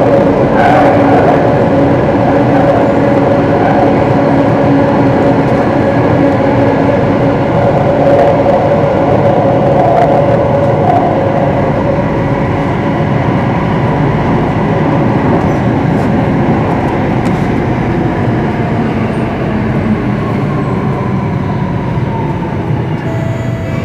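Singapore MRT train running in a tunnel, heard from inside the carriage: a steady rumble of wheels on rails with a motor whine. Over the last few seconds the noise eases and a whine falls in pitch.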